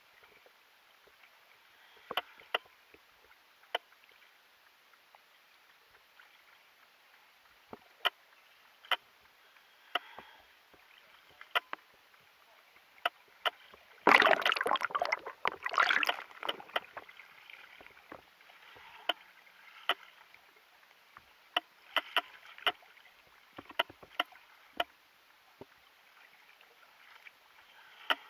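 Water sloshing and splashing at the surface around an underwater camera housing held at the waterline, with scattered sharp clicks and taps. The loudest splashing comes about halfway through, with another smaller flurry a few seconds later.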